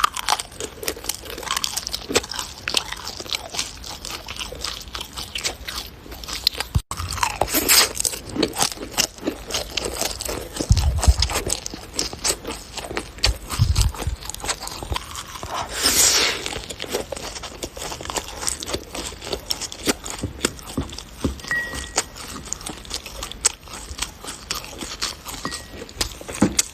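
Bubbly foam slime being squeezed and pressed, giving a dense, irregular run of crackles and small pops, with a few louder squelching swells.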